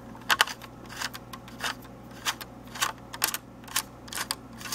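A small screwdriver backing out a heatsink screw in a Dell Inspiron E1505 laptop, making about a dozen short clicks at an uneven pace, two or three a second.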